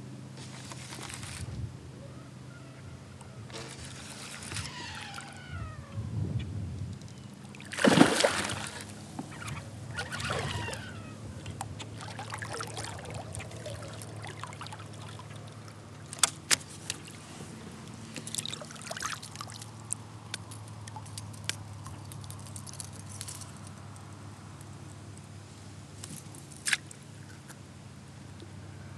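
Hooked smallmouth bass thrashing and splashing at the water's surface beside a kayak, in several bursts with the loudest splash about eight seconds in. After that the water is calmer, broken by a few sharp clicks.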